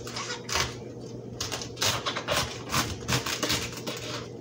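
Large kitchen knife cutting through a raw green cabbage: about ten crisp crunching cuts, each ending on the chopping board, coming quicker after the first second and a half.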